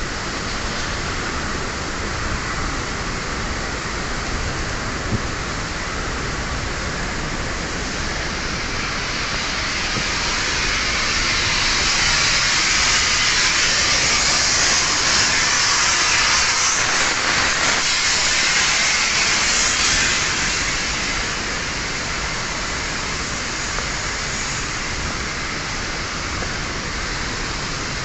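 Blast furnace giving off a loud, steady rushing hiss. It swells louder and brighter about a third of the way in and eases back about two-thirds of the way through.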